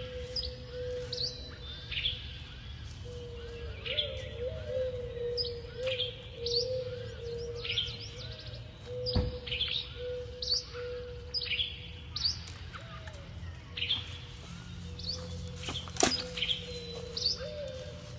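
Several birds chirping and calling again and again over a low, steady hum. A thump about nine seconds in, and a sharp knock near the end, the loudest sound.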